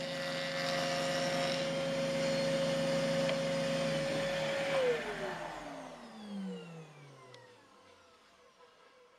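Homemade router table driven by an old washing-machine motor, running steadily with a high whine. About five seconds in it is switched off and spins down, its pitch falling as it fades.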